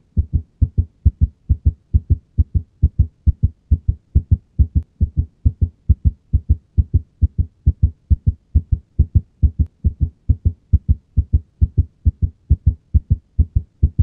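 Heart sounds of AV nodal reentrant tachycardia: a rapid, perfectly regular heartbeat, about four evenly spaced low thumps a second, with the first and second heart sounds preserved and unsplit.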